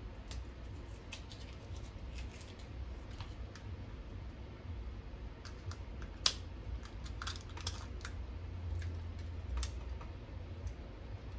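Irregular small clicks and taps as a small battery desk clock is handled and its battery fitted, with one sharper click about six seconds in.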